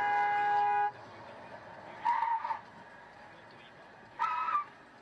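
Car horn: a long blast that cuts off about a second in, then two short toots about two seconds apart.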